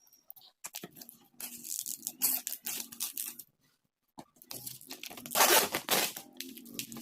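Packaging of an art kit being handled and opened: irregular crinkling and tearing, with a brief pause midway and a louder tear about five and a half seconds in.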